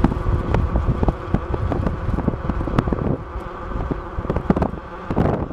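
Inside a moving vehicle: a low rumble of engine and road with a steady whine, broken by frequent irregular rattles and knocks.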